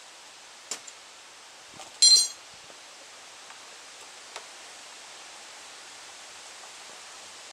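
Steady hiss with a few light clicks and one sharp metallic clink about two seconds in, with a short ring: metal hand tools against the lever hardware.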